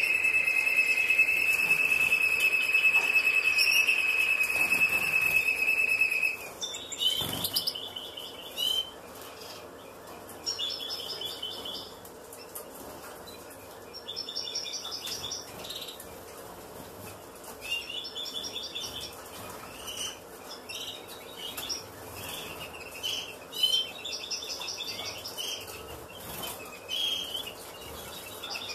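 For about six seconds, a loud steady high-pitched tone, then it stops abruptly. After that, caged finches chirp in short rapid trills every second or two.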